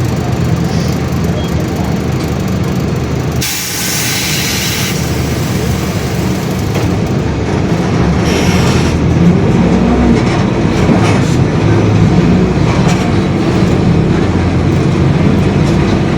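Mercedes-Benz OF-1721 BlueTec 5 city bus under way, its diesel engine and drivetrain running with the differential droning. A short hiss comes about three and a half seconds in. From about seven seconds the noise grows louder, with scattered clicks and rattles.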